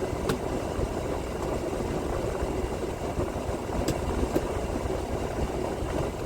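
Semi-truck diesel engine idling steadily, heard from inside the cab, with a few small clicks over it.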